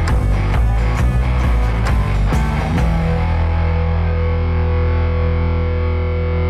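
Background rock music with distorted electric guitar and drums. The drum hits stop about three seconds in, leaving a sustained distorted chord.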